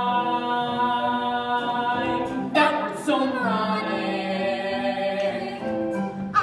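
Stage-musical cast singing together, several voices holding long sung notes.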